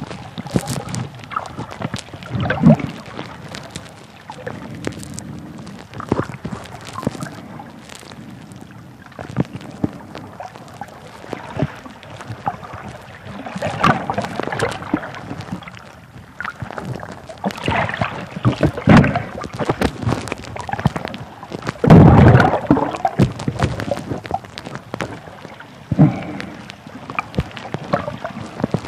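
Muffled water noise heard through a microphone held underwater: irregular swells of bubbling and sloshing with many knocks and clicks, the loudest swell about 22 seconds in.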